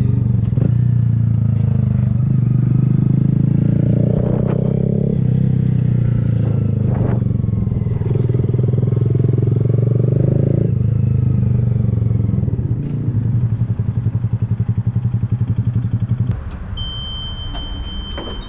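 Honda Grom motorcycle's single-cylinder engine running through an aftermarket Kemimoto exhaust while riding, its note shifting in pitch with speed. Later the note turns pulsing, then drops sharply in level near the end.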